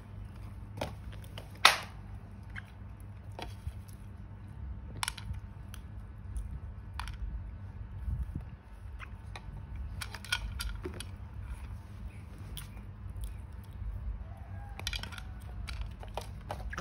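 Scattered light clicks and knocks of plastic toys and a plastic crate being handled by baby monkeys, over a steady low hum; one sharper knock about two seconds in.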